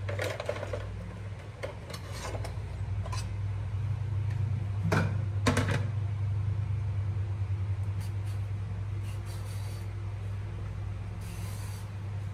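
Kitchen handling sounds over a steady low hum: knife and eggplant shifted on a wooden cutting board with small clicks, two sharp knocks about five seconds in as a plastic basin is set down on the board, and near the end a brief scrape of a peeler on the eggplant skin.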